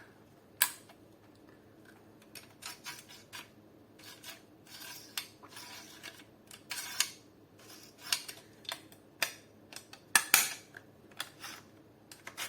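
Metal parts of an airsoft AK rifle clicking, scraping and knocking as they are worked back into place by hand, a part catching and not going fully home. The loudest knocks come about ten seconds in.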